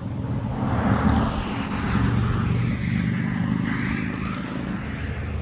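A motor drones steadily, with a rushing noise that swells and then eases off.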